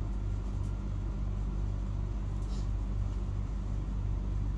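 Steady low mechanical hum with a regular throb, at an even level.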